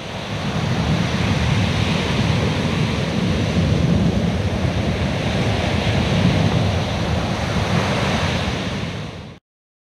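Sea waves breaking, a steady rush of surf that builds in over the first second, fades a little and cuts off suddenly near the end.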